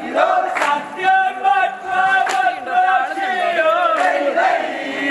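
Group of men chanting a vanchipattu boat song in unison, with sharp hand claps at a slow, regular beat.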